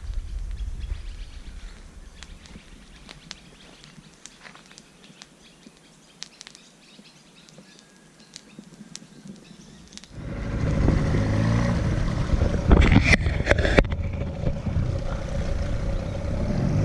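Faint outdoor background with a few light clicks. About ten seconds in, a motor engine starts up abruptly and keeps running steadily.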